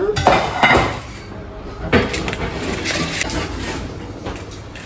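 Kitchen clatter: dishes and utensils being handled and set down on a counter, with several sharp knocks, the clearest about two seconds in.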